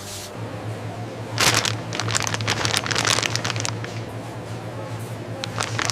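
Steady low hum of factory machinery, with a spell of rattling, crackling clatter from about one and a half to three and a half seconds in and a shorter burst near the end.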